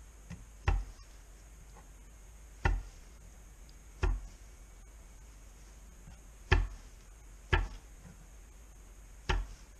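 Dull thumps of raw meat being patted dry with a paper towel on a wooden cutting board: six separate pats, irregularly spaced a second or two apart.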